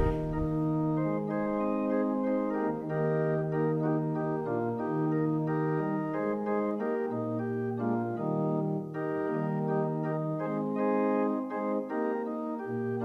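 Organ playing slow, held chords that change about once a second.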